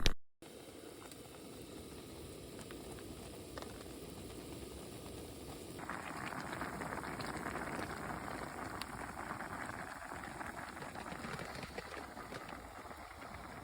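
A pot of ramen boiling on a camp stove, a steady bubbling that grows louder and brighter about six seconds in.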